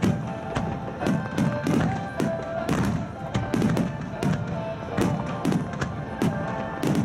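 Music accompanying a fireworks display, with firework shells bursting overhead in quick succession, about two sharp bangs a second over the music.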